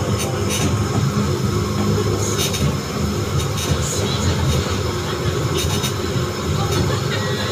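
DisneySea Electric Railway car running along its elevated track, heard from inside the car: a steady low rumble with a few clicks from the running gear.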